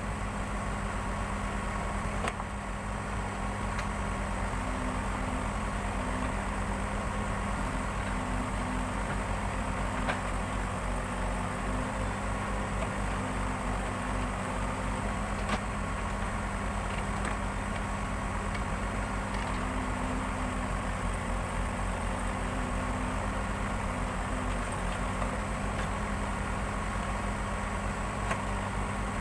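Backhoe loader's diesel engine running steadily at a constant pace, with a few light clicks or knocks along the way.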